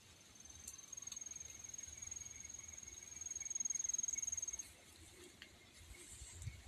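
Cricket trilling: one high, steady trill lasting about four seconds, which stops suddenly.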